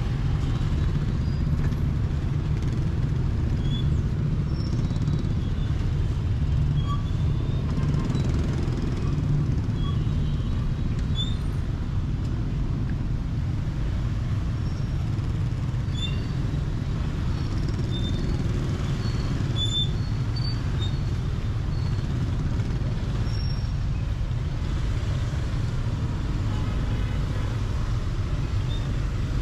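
Steady low rumble of city road traffic, with a few faint, short, high chirps scattered through it.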